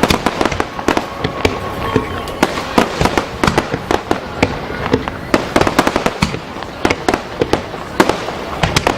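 Aerial fireworks going off in quick succession: a dense, irregular barrage of bangs and crackling pops as shells burst overhead.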